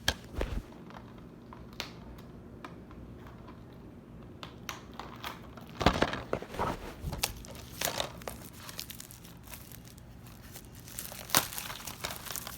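A plastic DVD case being handled: scattered clicks and knocks with plastic crinkling, a louder cluster of knocks about halfway through and a sharp click near the end.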